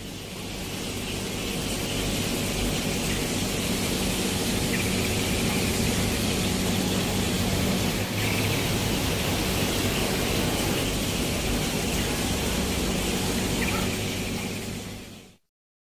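Steady rushing hiss with a low hum underneath, fading in over the first couple of seconds and fading out about a second before the end.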